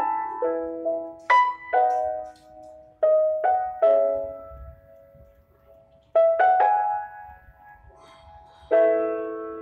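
Background piano music: short phrases of struck notes and chords that ring and fade away, with pauses of a second or more between phrases.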